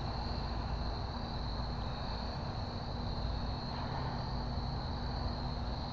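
Crickets chirring in a steady high drone over a low, even background rumble.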